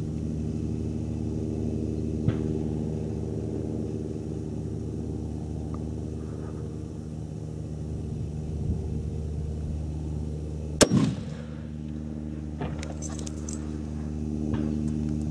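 A steady low engine hum, with one sharp rifle shot about eleven seconds in, followed by a brief echo. The shot is a Swiss K-31 (7.5×55 Swiss GP11) fired at a one-mile target.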